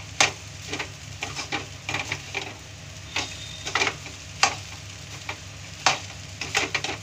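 Metal spatula scraping and turning rice in a stainless-steel kadhai as it is dry-roasted (bhuna) over a gas flame. The scrapes come irregularly, about one or two a second, over a steady frying hiss.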